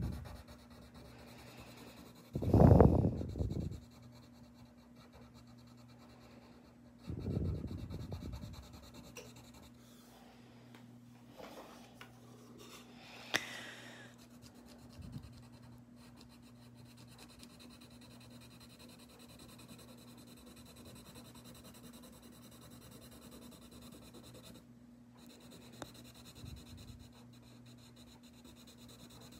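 Coloured pencil scratching faintly on paper as it colours in, over a faint steady hum. Two short, low puffs break in, a loud one about three seconds in and a weaker one about seven seconds in.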